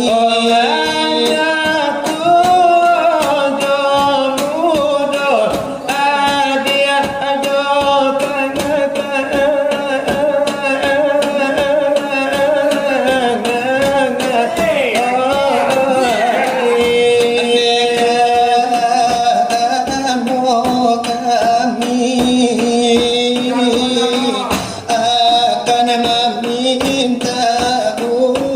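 Selawat dulang: voices singing long, ornamented devotional lines over fast, steady beating on brass trays (dulang).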